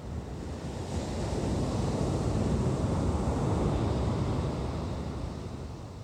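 Ocean surf: a wave's wash swells from about a second in to a peak in the middle, then fades away. Wind buffets the microphone underneath.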